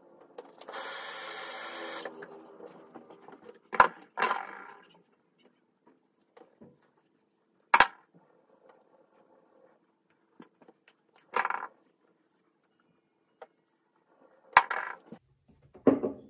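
Handling noises from a hair-product container and hands working product into hair: a steady rushing noise of about a second and a half near the start, then scattered sharp clicks and knocks.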